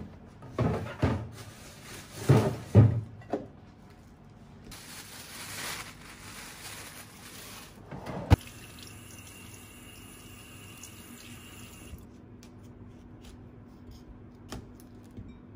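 Kitchen work sounds. Several heavy thumps and knocks come first as a fridge is opened. A kitchen tap then runs water into a sink, with a sharp click before the steadier stretch of running water. Near the end there are a few light taps of a knife cutting broccoli on a wooden board.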